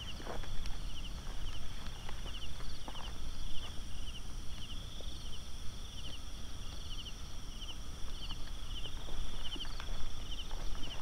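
Footsteps and light knocks of someone walking outdoors, over night insects chirping in short rapid trills that repeat about once a second above a steady high-pitched insect drone.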